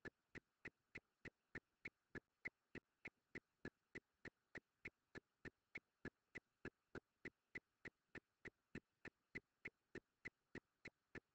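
Faint, evenly spaced ticks, about three a second, over near silence.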